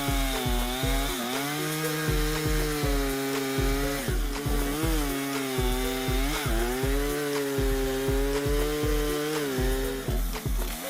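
Gas chainsaw cutting through wood, its engine pitch dipping and recovering several times as the chain bites into the cut. Background music with a steady beat plays underneath.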